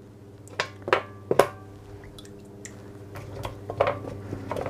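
Raw potato slices being picked from a bowl and laid into a non-stick roasting tray: soft taps and slaps as each slice lands, about three close together in the first second and a half, then lighter ones later, over quiet background music.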